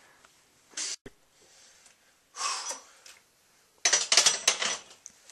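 A person straining under a bench-press barbell, making forceful breathy huffs and exhalations: two separate sharp breaths, then a quick run of loud, rapid puffing about four seconds in.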